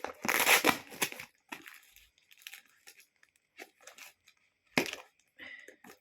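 Packaging being torn open by hand: a loud tear in the first second, then scattered rustling and crinkling, with a sharp click about five seconds in.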